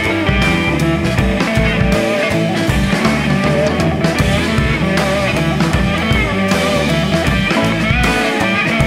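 Rock music: an instrumental passage of the song, guitar-led with a steady beat and no singing.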